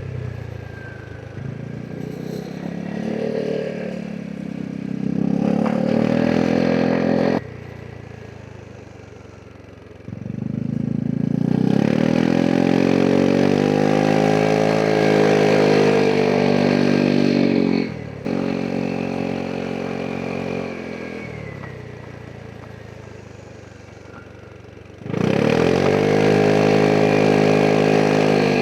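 Vespa GTS 300 SuperSport scooter's single-cylinder four-stroke engine pulling hard three times, each time rising in pitch and then holding steady, and dropping off sharply as the throttle closes. Quieter running between the pulls.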